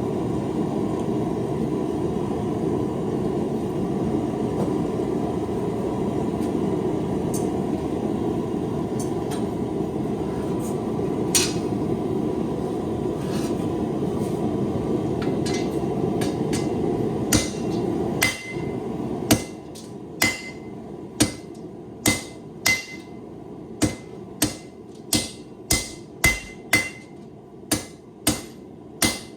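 A loud steady rushing noise that cuts off about two-thirds of the way through. A hand hammer then strikes hot high-carbon steel on an anvil, a ringing blow a little more than once a second, forging out a knife point.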